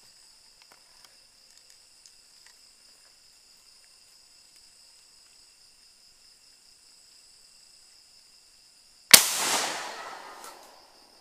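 A steady, high insect chorus of crickets or cicadas, with a few faint ticks. About nine seconds in, a single loud rifle shot cracks out, and its echo fades over about two seconds.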